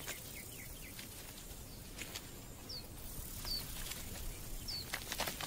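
Quiet outdoor ambience with a small bird giving short, high, downward-slurred chirps about once a second from around the middle onward, and a few faint clicks.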